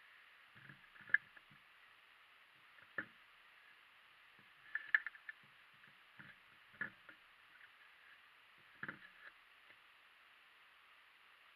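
Handling noise from small rubber-tyred RC crawler wheels being picked up, turned and set down on a table: scattered soft knocks and clicks, a cluster about five seconds in the loudest, over a steady hiss.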